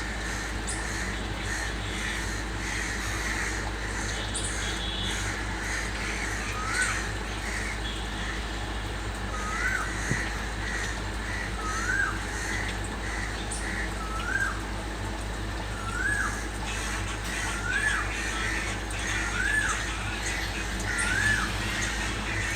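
A group of crows cawing, joined about a third of the way in by a cuckoo. The cuckoo repeats a rising whistled call about every two seconds, eight times, each call a little louder.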